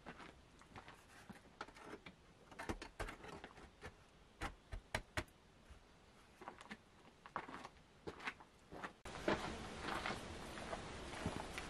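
Scattered wooden knocks and clacks as a wooden oven door is handled and fitted against a brick oven's opening, with a few sharper knocks about halfway through. About nine seconds in, the background changes to a louder, steadier outdoor ambience with small clicks.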